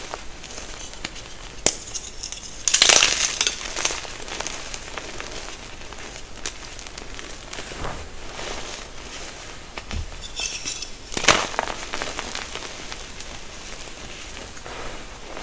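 Reformed gym chalk rounds and bars crunching and crumbling as they are squeezed and crushed by hand, with crisp crackles and soft powder rustling between. The loudest crunches come about three seconds in and again past eleven seconds.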